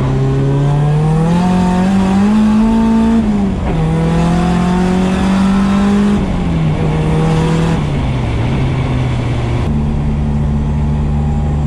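Car engine heard from inside a stripped, roll-caged cabin, revving up through the gears: its pitch climbs, drops sharply at a gear change about three and a half seconds in, climbs again and holds, then falls off as the car slows and settles to a steady run for the last couple of seconds.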